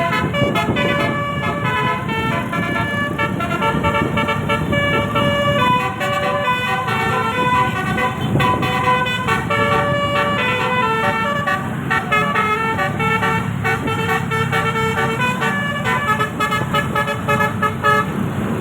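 Bus telolet horn, an 18-trumpet roof-mounted musical air horn, playing a long, quick melody of changing notes over a low rumble. The melody breaks off near the end.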